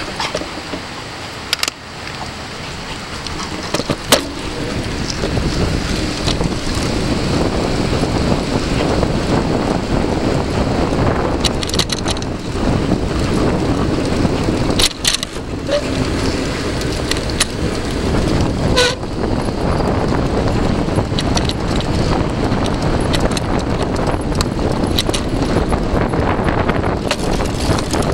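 Wind buffeting the microphone and the tyre noise of a mountain bike rolling at speed, growing louder over the first few seconds, with scattered sharp clicks and rattles and two brief squeaks in the middle.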